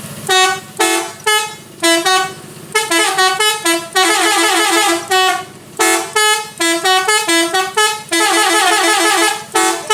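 Telolet bus horn, a multi-tone horn played by hand: a string of short toots on changing notes, then quick trilling runs of alternating notes about four seconds in and again near the end.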